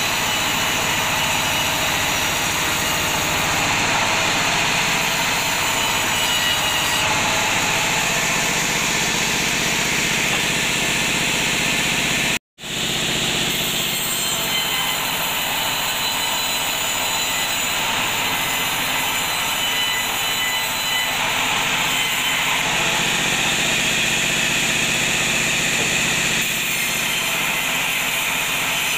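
Sawmill bandsaw ripping a teak log lengthwise into boards: a steady, loud rasping of the blade cutting through the wood over the machine's running. The sound cuts out very briefly near the middle.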